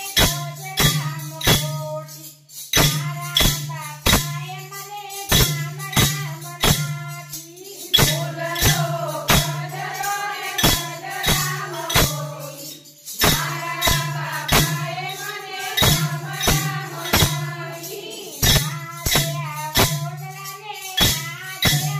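Women singing a Gujarati devotional bhajan together over a steady clacking beat of hand-held clappers and rattles, about one and a half strokes a second.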